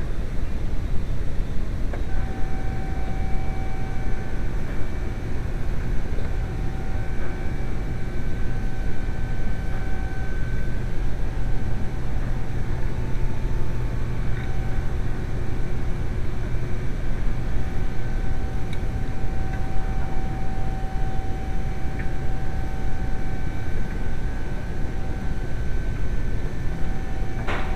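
VW 1.8T turbocharged four-cylinder engine running steadily with a low drone and a faint high whine that comes and goes; the turbo is worn.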